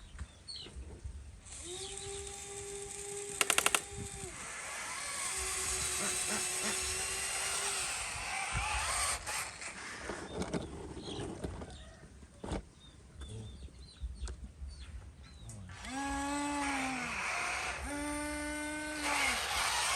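Electric motors of radio-controlled construction models whining in bursts of a few seconds, several of them dropping in pitch as they stop, over a scraping hiss and a short run of clicks.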